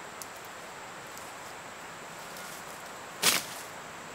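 Steady forest ambience with a thin, high, continuous insect whine and a few faint clicks. About three seconds in comes one loud, short crackling rustle.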